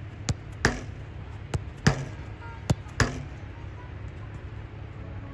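Soccer ball struck in quick one-touch passes against a wooden rebound board: six sharp thumps in three pairs, each kick followed about a third of a second later by the ball hitting the board, over the first three seconds, then only a low steady rumble.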